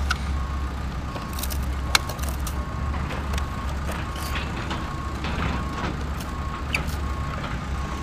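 A reversing alarm beeping in an even series over a steady low engine rumble, with a sharp click about two seconds in.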